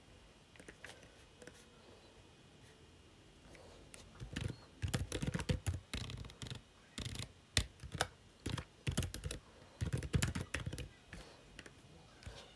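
Computer keyboard typing: a few faint keystrokes at first, then quick runs of key clicks from about four seconds in, fading out near the end.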